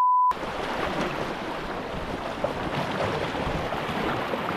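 A loud, steady electronic beep cuts off about a third of a second in. It gives way to creek water rushing steadily over a shallow riffle around a moving kayak.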